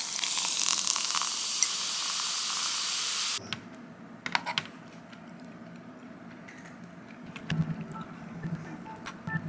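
A steady hissing noise that cuts off suddenly a little over three seconds in, followed by quieter scattered small clicks and knocks.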